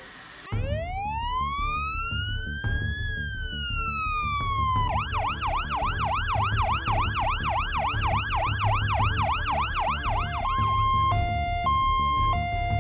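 Electronic ambulance siren: one slow wail that rises and falls, then a fast yelp for about five seconds, then a two-tone hi-lo alternation near the end, over a steady low engine rumble.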